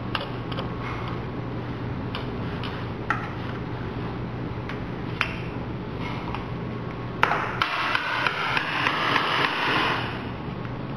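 Scattered light knocks and clicks of sculpture materials and tools being handled, growing busier about seven seconds in, over a steady low room hum.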